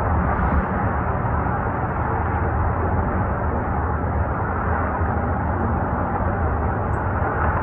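A pair of distant UH-60 Black Hawk helicopters in flight, heard as a steady, even rumble of rotor and engine noise with a hiss on top.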